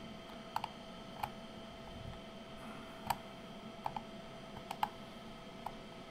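Small precision screwdriver clicking against the tiny case screws and metal chassis of a Kenwood TH-D75A handheld radio being screwed back together: scattered light, sharp clicks, several in quick pairs, over a faint steady hum.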